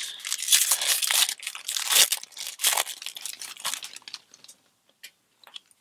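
Khans of Tarkir booster pack's foil wrapper being torn open and crumpled in the hands, a dense crackle that dies away about four seconds in, followed by a few faint ticks.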